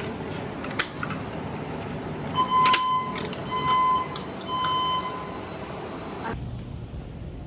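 Fire alarm voice-evacuation speakers sounding three pulses of a steady tone, the temporal-three evacuation signal that plays between the recorded emergency messages. A steady hiss runs under it and cuts off near the end, and there is a sharp click about a second in.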